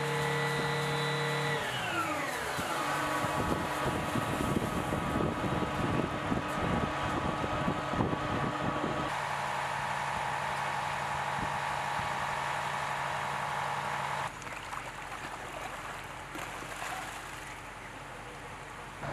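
Fire pump engine running steadily, its pitch falling about two seconds in as it throttles down, then holding. Hose water spray and rushing adds a rough hiss over it. The hum shifts abruptly a couple of times and drops in level near the end.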